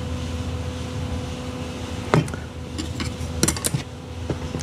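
Steady low shop hum while a fluxed cable end is held in a small electric solder pot and lifted out, with a sharp light click about two seconds in and a few quick light clicks and taps around three and a half seconds.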